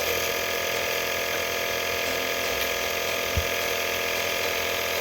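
Home nebulizer's compressor motor running with a steady mechanical buzz, with one soft bump about three and a half seconds in.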